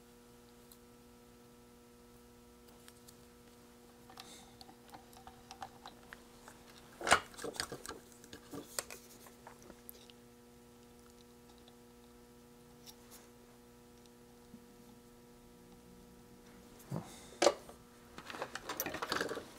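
Scattered clicks and taps of small electronic components and hand tools being handled on a workbench, with a louder click about a third of the way in and a short rustling stretch near the end, over a steady low electrical hum.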